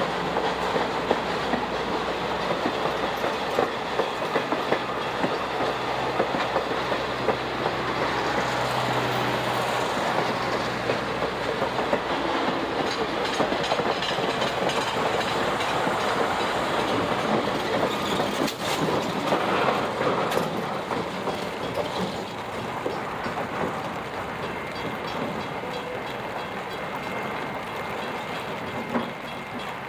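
Train hauled by steam locomotive 1309 rolling past at close range: a steady rumble of running gear with scattered sharp clicks of wheels over the rail joints, easing off slightly in the last few seconds.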